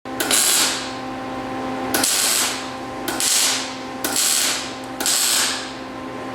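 Five short rasping mechanical strokes, roughly a second apart, over a steady hum.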